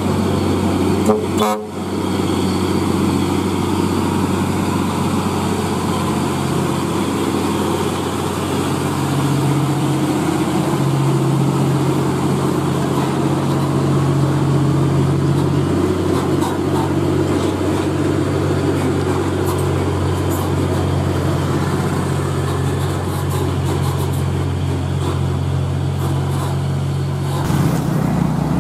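Heavy diesel truck engine running steadily under load as it pulls a loaded semi-trailer uphill past close by. There is a brief sharp sound about a second and a half in, and the engine sound changes shortly before the end.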